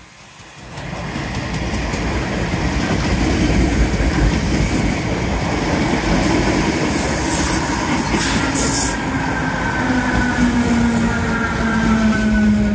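DART electric multiple unit (Class 8100) passing close by, its wheels rumbling and clattering on the rails, loud from about a second in. A little past halfway come brief high squeals, and in the last few seconds a whine slides down in pitch.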